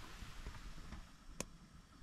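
Faint rustling and handling noise, with one sharp click about one and a half seconds in.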